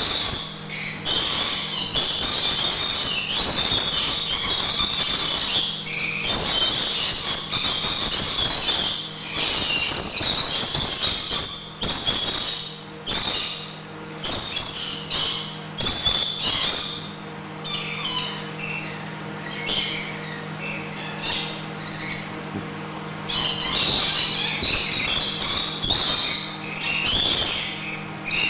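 A flock of lorikeets screeching and chattering loudly in bouts that thin out for several seconds past the middle, over a steady low hum.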